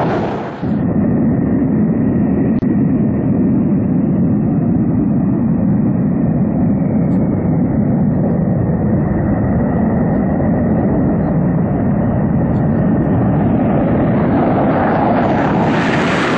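Panavia Tornado's twin jet engines at takeoff power: a loud, steady jet roar with a thin whine over it, growing brighter and harsher near the end as the jet accelerates down the runway on its takeoff roll.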